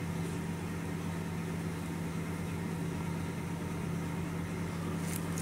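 A steady low machine hum, with a few faint clicks near the end.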